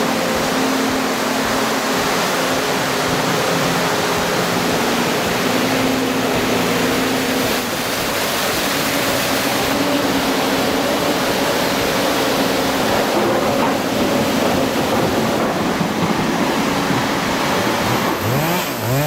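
A machine engine running steadily under a loud, even rushing noise, its low hum fading about halfway through.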